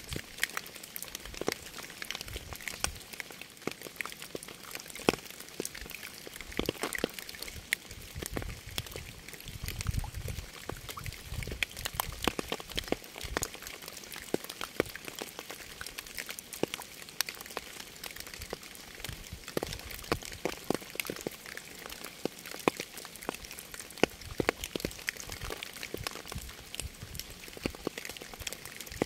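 Rain falling steadily, with many close individual drops tapping and splashing on a surface over a constant hiss. A low rumble swells briefly about nine seconds in and fades a few seconds later.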